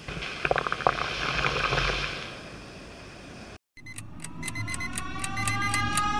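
Shore waves washing up the sand with wind on the microphone and foam crackling. After a brief cut about halfway through, a song intro starts: a ticking beat about four times a second under rising electronic tones, growing louder.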